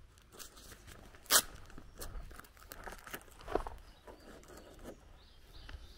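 Footsteps crunching on a gravel lane at a walking pace, with one sharp, much louder click about a second and a half in.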